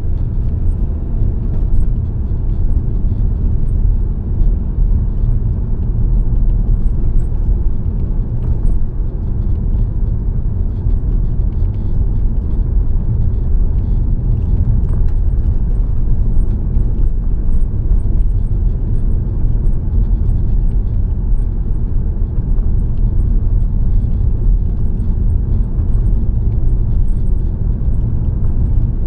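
A car driving along a road: a steady low rumble of road and wind noise that holds even throughout.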